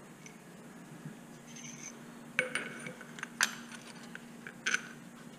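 Sharp metallic clinks and taps from a motorcycle front fork being put back together: the chrome inner tube and damper rod knocking against the lower fork leg. There are a handful of ringing clinks, the loudest about three and a half seconds in.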